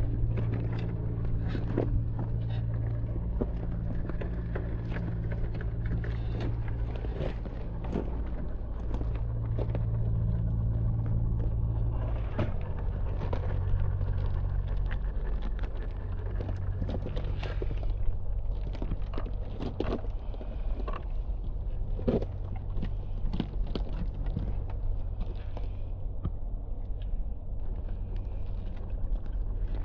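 Traxxas TRX-4 RC crawler's electric motor and gearbox running at crawling speed as a low steady hum that shifts pitch about twelve seconds in, over many small clicks and crackles.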